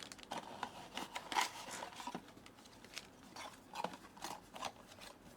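Blind-box packaging being handled and opened: light rustling with scattered small clicks and crackles.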